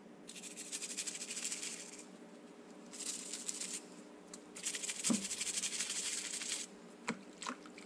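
A stiff bristle brush scrubbing a small wet white ring over a tub of soapy water, in three bursts of quick back-and-forth strokes, followed by two small clicks near the end.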